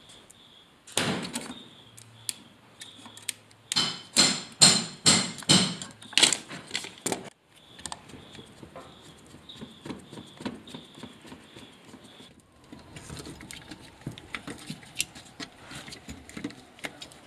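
Hand tools and hardware handled during wiring work: a run of sharp knocks, about seven in quick succession, then softer clicks and rattles.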